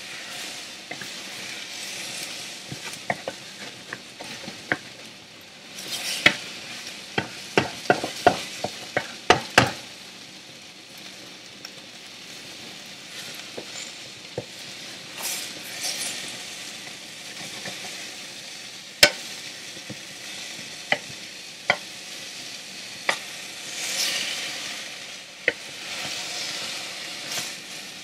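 Chinese okra and egg sizzling in a frying pan, with a spatula clicking and scraping against the pan as the food is turned and stirred; a quick run of clicks comes between about six and ten seconds in, then scattered single ones.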